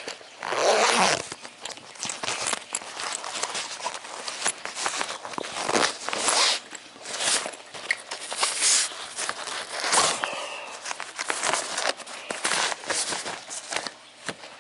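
Zipper on a coloring pencil case being pulled along in a series of short rasping strokes, with rustling as the case is handled.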